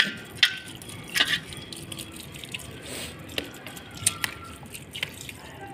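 Water from a plastic bottle with a trigger-spray head falling onto a potted seedling's soil, in irregular drips and small splashes.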